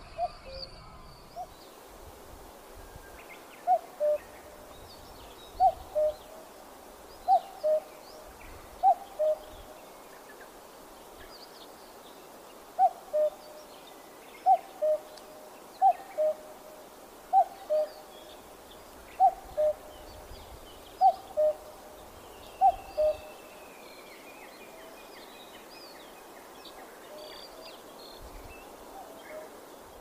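Common cuckoo calling its falling two-note 'cuck-oo', eleven times at an even pace of about one call every one and a half to two seconds. There is a short pause after the fourth call, and the calling stops a little past two-thirds of the way through. Faint chirps of other small birds sound higher up.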